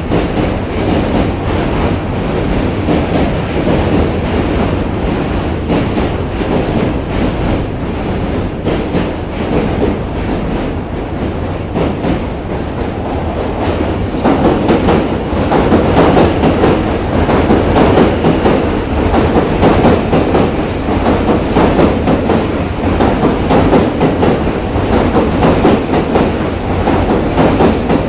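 New York City subway trains running over a steel bridge, their wheels clattering over the rail joints with a heavy rumble. One train is passing at first; about halfway through a second train comes in on the near track and passes close by, louder.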